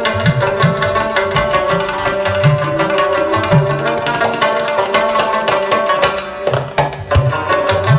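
Afghan folk music with a fast, dense drum rhythm under a sustained melodic line.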